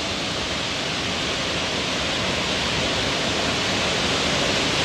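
Waterfall rushing: a steady, even roar of falling water that grows slightly louder.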